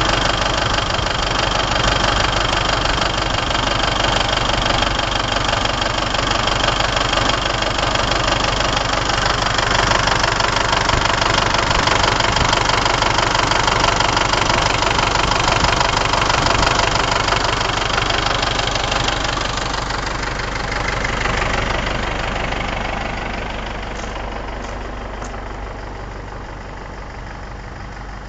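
Mercedes-Benz OM364A four-cylinder turbo diesel in an MB Trac 800 tractor running with a steady diesel clatter, growing fainter over the last eight seconds or so.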